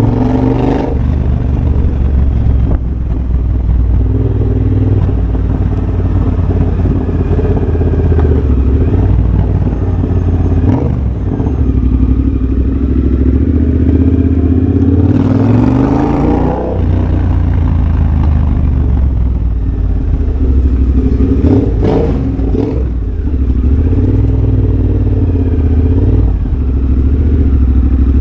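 A 2023 Triumph Bobber's 1200 cc parallel-twin running through a de-catted Tec X-pipe and a Motone Shorty exhaust while riding. It holds steady revs for most of the time. About halfway through the revs rise, then drop off sharply.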